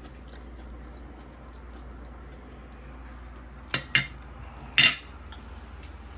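Metal fork and knife clinking against a ceramic dinner plate: three sharp clinks close together about four seconds in, over a low steady hum.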